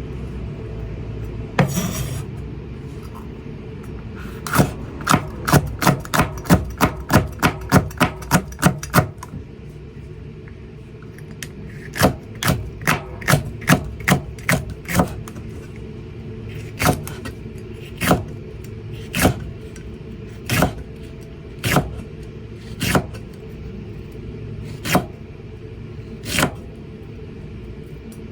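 Kitchen knife cutting green peppers on a cutting board: a quick run of about a dozen crisp chops, a pause, a second quick run, then single slower cuts about once a second. A steady low hum sits underneath.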